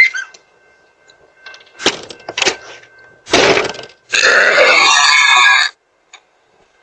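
A woman burping: a couple of short, softer sounds, then a loud burp of about half a second, then a long loud burp of about a second and a half that cuts off suddenly.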